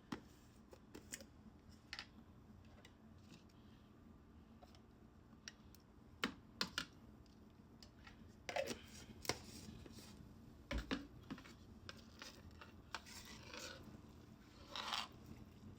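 Faint eating sounds: scattered crisp clicks and crackles of fried chicken being bitten and chewed, with a few longer crunchy rasps.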